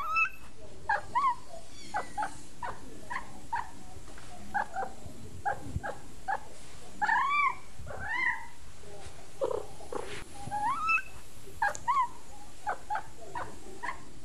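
A young kitten mewing over and over: short high-pitched mews, about one or two a second, with a couple of longer drawn-out mews around the middle.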